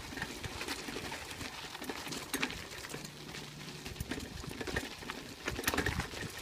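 Two harnessed dogs trotting on a dirt trail, pulling a light tricycle: scattered soft pawsteps with small clicks and rattles from the trike and hitch rolling over the ground, a little louder near the end.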